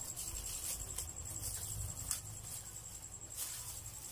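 Plastic wrapping rustling and crinkling as it is handled and cut with scissors, in short irregular bursts. A steady, evenly pulsing high trill runs throughout, over a low steady hum.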